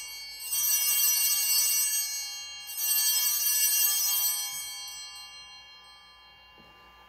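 Altar bells rung at the elevation of the host during the consecration at Mass: a ring dying away at the start, then rung twice more, about half a second in and again near three seconds, each ring fading out to quiet by about six seconds.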